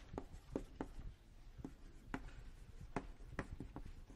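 Someone writing on a lecture board: a string of sharp taps and clicks, two or three a second, as the strokes are made.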